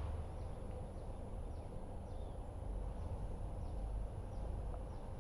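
Birds chirping: short, high, falling notes every second or so over a steady low rumble.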